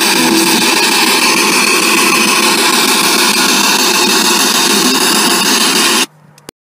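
Spirit box sweeping the radio band, playing loud, steady hissing static through an external speaker. It cuts off suddenly about six seconds in.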